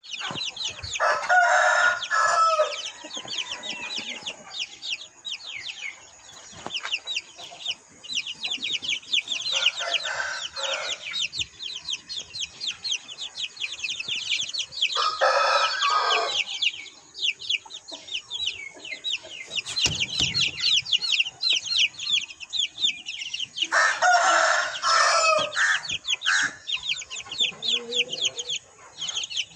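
A flock of young chickens peeping without pause: many short, high peeps overlapping. Louder, lower calls break in a few times, about a second in, at ten and fifteen seconds, and again near the end.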